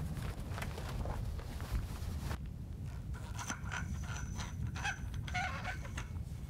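Handling sounds of a vehicle-side roll-out awning being unfurled and its aluminium support pole set up: fabric rustle with light knocks and scrapes. In the second half these thin out to a few clicks and a faint high scraping tone, over a steady low rumble.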